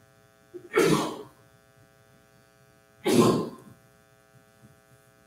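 A man coughs twice, about two seconds apart, over a steady electrical hum.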